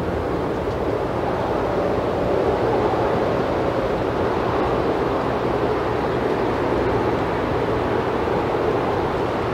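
Steady outdoor rushing noise picked up by a yard camera's microphone, even throughout with no distinct events.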